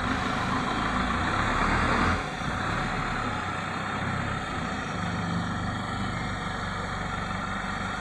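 Terex TLB 740S backhoe loader's diesel engine running under load as the backhoe lifts a full bucket. It works hardest for about the first two seconds, then eases back to a steady run.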